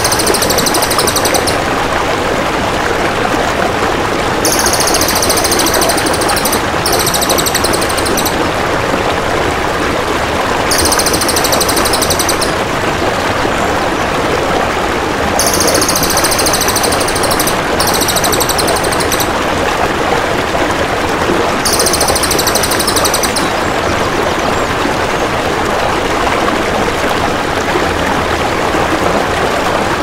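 Crested jay (cililin) calls over steadily flowing water. The calls are high, fast rattling trills of one to two seconds each, heard seven times, some singly and some in quick pairs.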